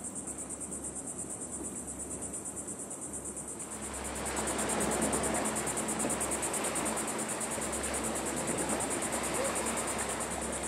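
Steady, high-pitched insect chorus with a fast, even pulse. About four seconds in, a louder rushing noise joins it.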